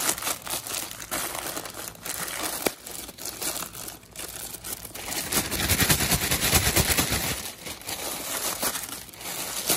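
Plastic courier mailer bag crinkling and rustling as it is pulled open by hand and the plastic-wrapped parts inside are handled. It is loudest a little after halfway through.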